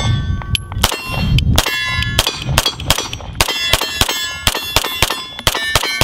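Beretta PX4 Storm pistol fired in a fast string of shots, roughly three a second, each followed by bright metallic ringing clangs.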